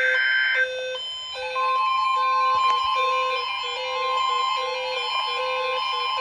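Emergency weather-alert tones: a low electronic beep pulsing on and off about twice a second. About a second and a half in, a steady, higher alert tone joins it and holds.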